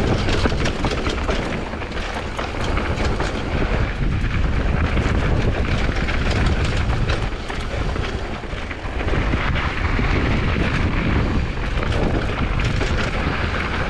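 Wind buffeting an action camera's microphone as a Commencal Supreme DH downhill mountain bike rolls down a dirt trail, with many short clicks and rattles from the bike and tyres over rough ground.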